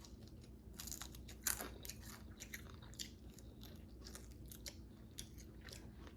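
Close-up chewing and biting of crispy fried chicken wings: a run of irregular crunches and small crackles, with a faint steady hum beneath.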